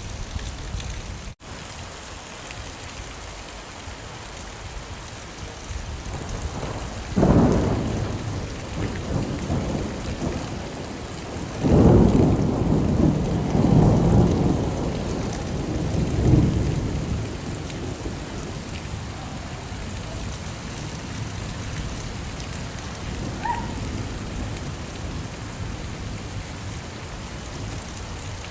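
Steady rain with rumbles of thunder: one about seven seconds in and a longer, louder roll from about twelve to sixteen seconds. The rain cuts out for an instant about a second in.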